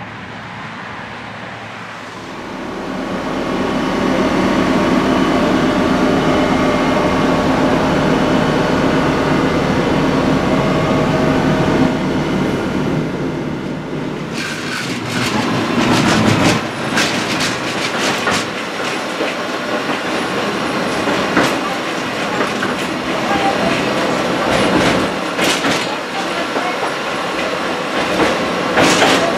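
A Tatra T3 tram runs toward and past on its track, a steady running sound that swells over the first few seconds. Then, from inside a Tatra T3 car, the wheels clatter over rail joints with sharp knocks and body rattle, typical of the badly worn track.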